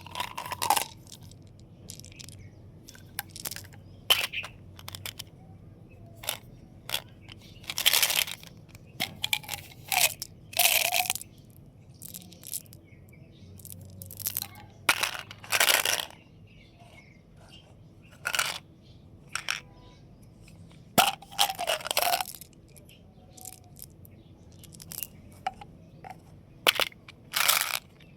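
Candy wrappers being handled and torn open: crinkling and tearing packaging, with many sharp clicks and cracks and several louder rustling bursts about half a second long.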